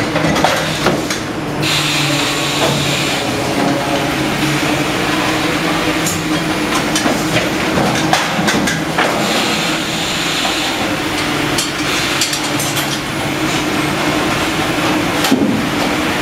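Fish processing line running: a steady machinery hum with scattered clicks and knocks, most of them in the middle.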